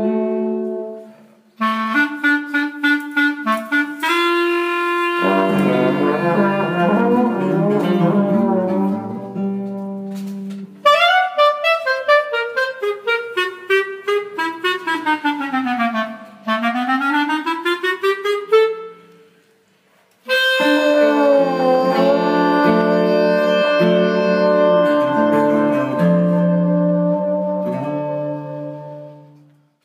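Jazz trio of clarinet, trombone and acoustic guitar playing: chords and short repeated notes, then a long sliding run that falls and climbs back up. After a brief break the three hold a final chord for several seconds until it dies away.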